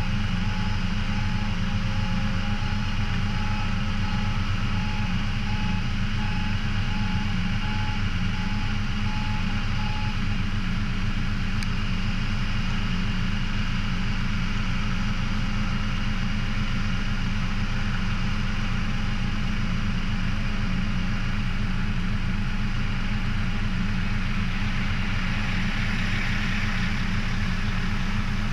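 Heavy engine idling steadily, with a fast pulsing beep alarm running over it for the first ten seconds or so.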